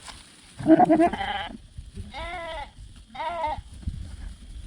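Goat bleating: three bleats, the first and loudest about a second in, then two shorter ones about a second apart.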